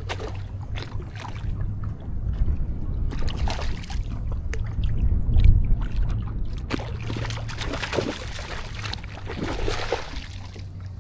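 Low rumble of wind on the microphone, with small water splashes and light knocks around a kayak while a hooked fish is being fought.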